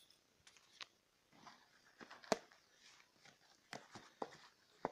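Cardboard box being handled and its taped flaps opened by hand: faint scattered clicks and rustles, the sharpest click a little over two seconds in.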